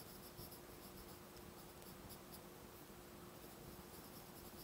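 Faint scratching of a Stampin' Blends alcohol marker's tip stroking across cardstock while colouring in, in short repeated strokes, over a faint steady hum.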